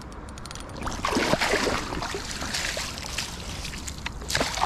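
Shallow river water splashing and sloshing, louder from about a second in, as an angler wades in with a hooked brown trout on the line.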